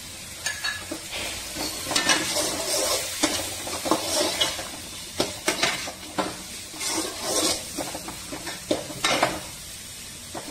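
Perforated steel skimmer ladle stirring and scraping diced carrots, beans and onions around a metal kadai, with sharp clinks of ladle on pan over a light sizzle of the vegetables frying in oil. The stirring stops about a second before the end.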